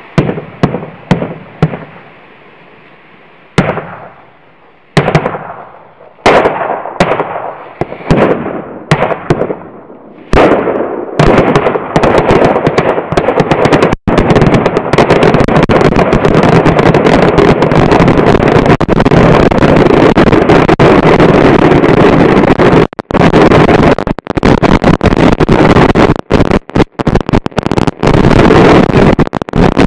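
Firecrackers exploding: a string of separate loud bangs, each fading away, for the first ten seconds or so, then a dense continuous crackle of many firecrackers going off at once, breaking into rapid bangs with short gaps near the end.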